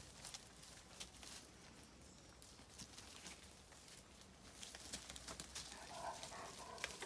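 Dogs snuffling and rummaging through a woodpile among dry twigs and dead bracken: faint rustling with a scatter of small twig crackles and snaps.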